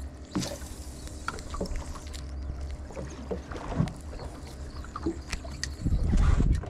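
Sound aboard a small fishing boat at sea: a steady low rumble with scattered knocks and clicks. A louder rushing surge comes about six seconds in.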